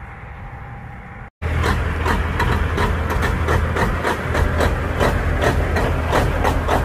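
Diesel engine of a long-hood semi tractor with straight stacks, running loud and deep with a rapid, rhythmic clatter as the tractor rolls slowly past. Before it, a quieter stretch cuts off abruptly about a second and a half in.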